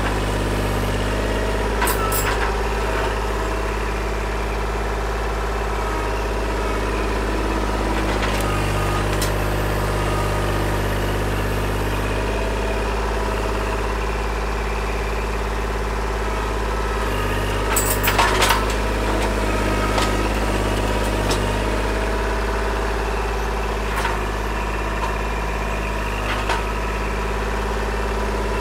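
Kubota L2501 compact tractor's three-cylinder diesel running steadily as the loader works a log-grapple rake. Now and then wood knocks against the grapple, loudest about two-thirds of the way through.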